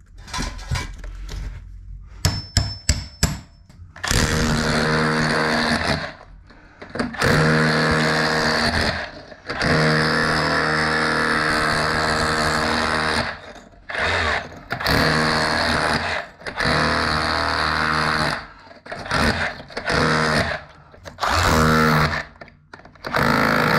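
Cordless DeWalt SDS hammer drill running in hammer mode with a flat chisel bit, chiselling brick in repeated bursts of a few seconds each to cut a recess for a socket back box. A quick run of sharp knocks comes about two seconds in, before the drilling starts.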